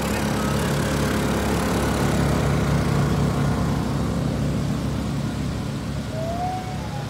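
A small engine running steadily at an even speed, with a constant low hum.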